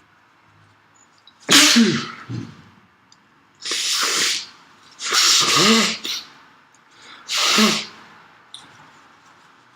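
A person sneezing repeatedly: four loud, forceful sneezes, the first about one and a half seconds in and the last near the end, each a burst of breathy hiss, most with a short voiced cry.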